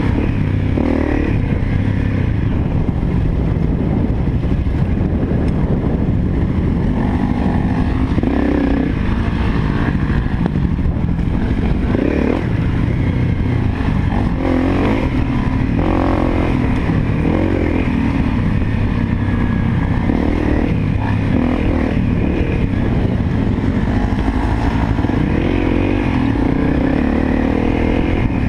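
Honda CRF250L single-cylinder four-stroke dirt bike engine running under way on a trail, its pitch rising and falling as the throttle changes, with steady wind and rumble on the helmet microphone.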